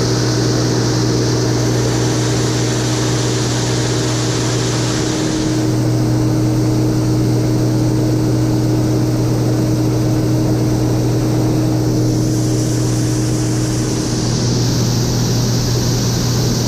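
Rotary combine harvester running steadily while harvesting, a constant drone with a deep hum. A higher hiss fades out about five seconds in and comes back near the end.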